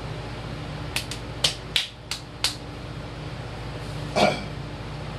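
A quick string of six sharp clicks and knocks, starting about a second in, as a person sits down on a weight bench, followed by a brief noisy sound about four seconds in. A steady fan or air-conditioner hum runs underneath.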